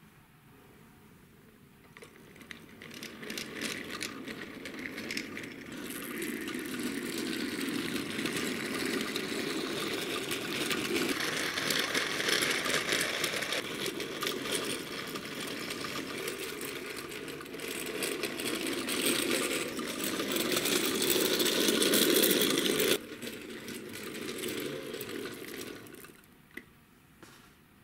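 Small toy wheels of a toy fire-truck tractor-trailer rolling along a wooden floor, a steady rolling rattle that builds up over the first few seconds and stops abruptly near the end.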